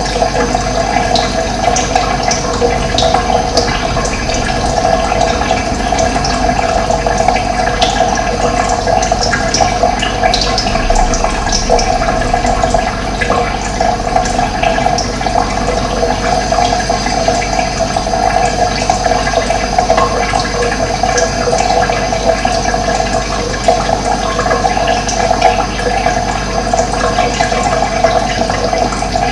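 Running water rushing steadily and evenly, with no pauses.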